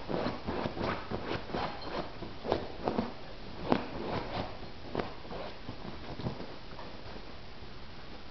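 A Vizsla's claws scratching and scrabbling at a fabric cushion dog bed as she digs, in quick irregular strokes that thin out after about five seconds.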